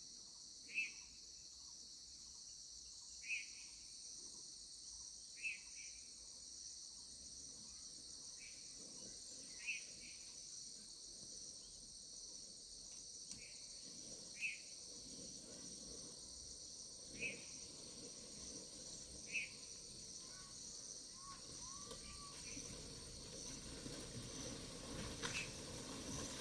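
Steady high-pitched insect chorus, like crickets, with a short chirp repeated about every two to three seconds; a faint low rumble grows near the end.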